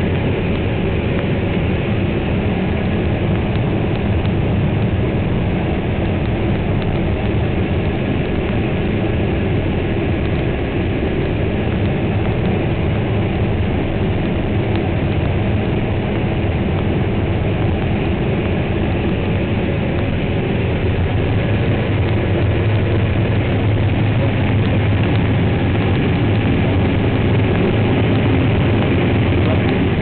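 Case IH Axial-Flow 8010 combine running steadily while harvesting corn through a 12-row Geringhoff corn header, heard from inside the cab: a constant drone of engine and threshing machinery.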